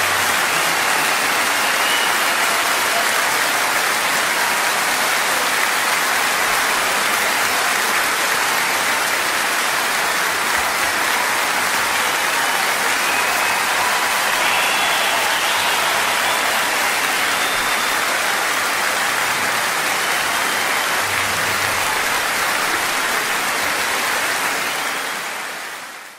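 Steady rushing wind noise across the microphone of a paraglider pilot's action camera during the final glide and landing, fading out near the end.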